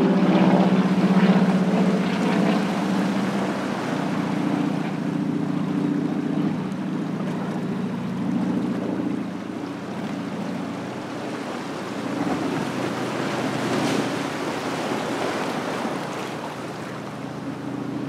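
Ocean waves washing in and swirling among shoreline rocks, with a louder splash about three-quarters of the way through. Under the surf runs a steady low engine drone with a few fixed pitches, slowly fading.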